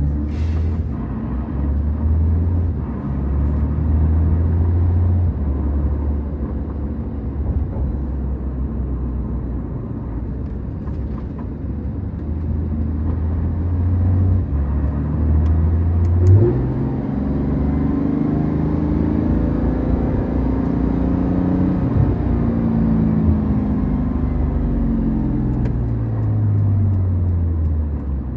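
Porsche 991.2 911 GT3 RS's 4.0-litre flat-six heard from inside the cabin, running at low revs while the car moves off and cruises. From a little past halfway, the engine note rises and drops repeatedly as the car accelerates and eases off, with one short knock just before.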